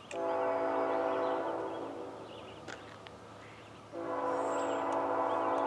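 Air horn of a Canadian National GE ET44AC freight locomotive sounding a long chord blast that fades out about two seconds in, then a second long blast starting about four seconds in.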